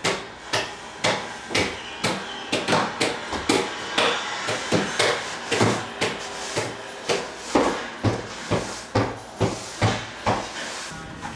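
A run of hard knocks or bangs, roughly two a second and unevenly spaced, stopping near the end.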